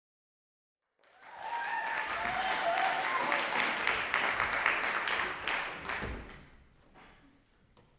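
Audience applauding, starting about a second in and dying away after about five seconds, leaving the hall quiet.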